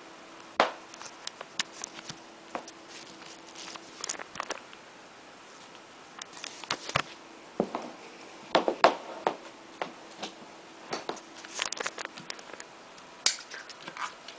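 Scattered clicks, knocks and rustling as electrical cords and a white plug-in digital timer are handled on a carpeted floor, sharpest around nine seconds in, over a faint steady hum.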